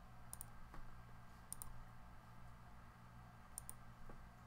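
Three faint computer mouse clicks, each a quick double tick, over a steady low electrical hum.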